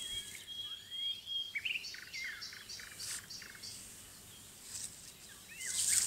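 Small songbirds singing in the forest: a thin high held whistle, then a run of short chirps and quick sweeping notes. A brief rustle comes near the end.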